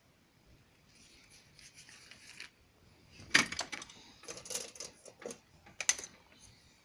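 Plastic packet of medicated pain-relief plasters and the plaster sheets being handled and pulled out: soft crinkling from about a second in, then three clusters of sharper crinkles and crackles, the loudest about three seconds in.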